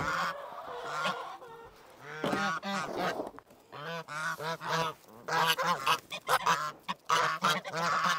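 Domestic geese honking, many calls overlapping in quick succession with a few brief lulls.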